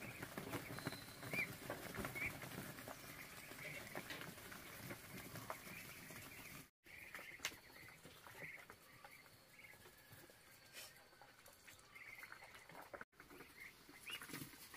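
A flock of 50-day-old ducklings peeping, short high calls scattered all through, with faint clicks and rustling from the birds moving about; the clicks are busiest in the first half.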